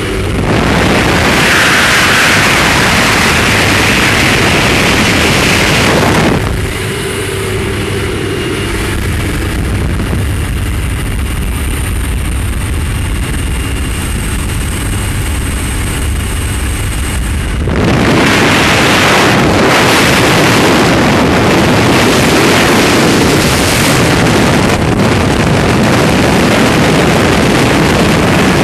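Wind rushing through the open door of a small propeller plane in flight, mixed with the drone of its engine. The noise eases somewhat for a stretch in the middle and swells again when jumpers move out into the slipstream.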